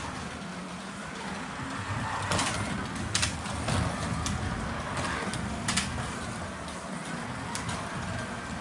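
Carrera Digital 132 slot cars lapping the track: electric motors whining and rising and falling in pitch as the cars pass, with sharp clicks every second or so.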